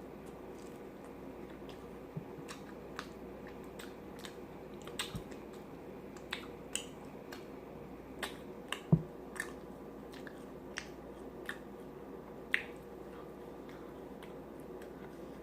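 Close-miked mouth sounds of eating: chewing with scattered wet smacks and clicks at an irregular pace, and one louder knock about nine seconds in, over a faint steady hum.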